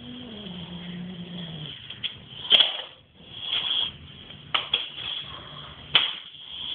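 A domestic cat's long, drawn-out meow that falls in pitch and ends about a second and a half in, followed by a few sharp knocks, the loudest about two and a half seconds in.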